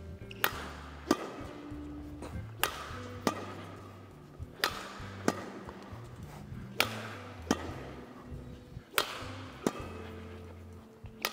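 Badminton rackets striking a shuttlecock in a rally, a sharp hit about ten times, in pairs a little over half a second apart, every two seconds or so.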